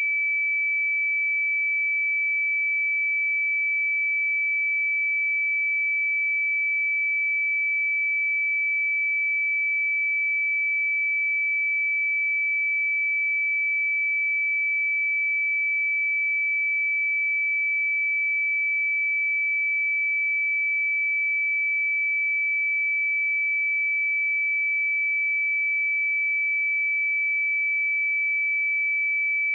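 A pure 2306 Hz sine-wave test tone, one steady high-pitched note held unchanged throughout.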